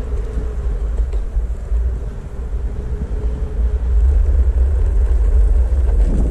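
Ride on a Backfire Ranger X2 electric all-terrain skateboard: wind buffets the microphone over a steady rumble from the rolling board. A faint steady whine sags slightly in pitch and fades out about two-thirds of the way through.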